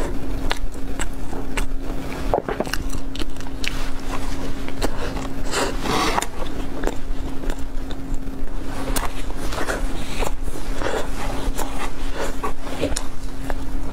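Close-miked eating: biting and chewing soft baked food, with many small wet mouth clicks and smacks. There is a longer rustle about six seconds in, over a faint steady hum.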